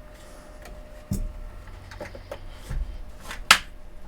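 Handling noises on a workbench: a few light knocks and clicks as equipment and leads are moved, the sharpest click about three and a half seconds in.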